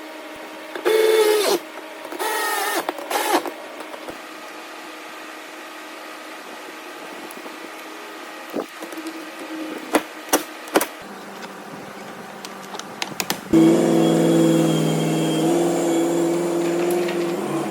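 A few short creaks and scattered clicks, then a vehicle engine starts about two-thirds of the way in and runs steadily.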